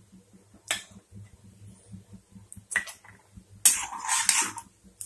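Cumin seeds spluttering in hot oil in an iron kadhai: two sharp clicks about two seconds apart, then about a second of a metal spoon scraping and stirring the sizzling seeds in the pan near the end.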